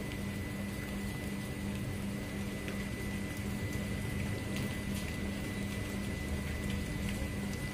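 A steady low hum and rumble from a running machine, with a faint, thin high tone held throughout.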